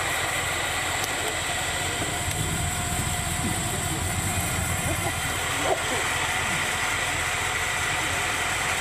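Off-road 4x4 engine running steadily at low revs, with faint voices in the background.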